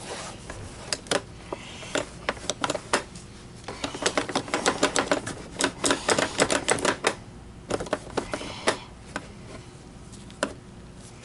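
Gloved hands buffing the glossy plastic shell of a Miele C3 canister vacuum with a microfiber cloth: a quick run of dry clicks and ticks, thickest around the middle, over a low rubbing noise.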